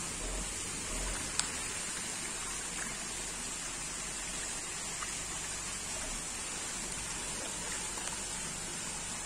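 Steady rain-like patter of water splashing as a dense crowd of Nile tilapia churns at the surface of a fish-farm pond. A single sharp click sounds about a second and a half in.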